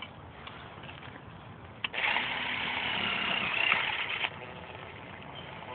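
Cordless drill running for about two seconds with a high motor whine, its bit turning in soil, starting just after a click and cutting off suddenly.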